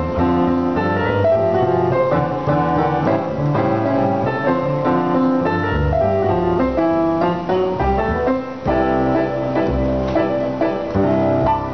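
Jazz duo of digital piano and plucked double bass playing together: piano chords and melody over a line of low bass notes.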